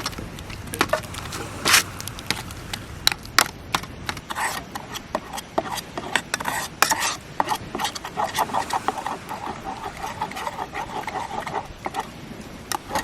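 Irregular knocks, clicks and rubbing of objects being handled, with a quicker run of small taps in the second half.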